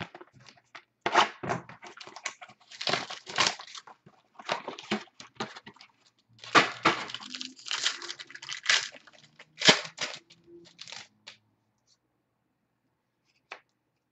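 Baseball-card packaging and cards being handled: a run of irregular crinkling and tearing rustles that stops about eleven seconds in, followed by a couple of light clicks.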